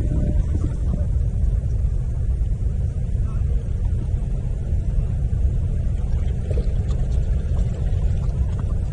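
Wind buffeting the action camera's microphone: a steady low rumble.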